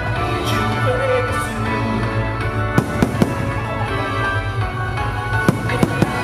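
Fireworks bursting over a playing music soundtrack: a quick cluster of sharp bangs about three seconds in and another near the end, with steady music underneath.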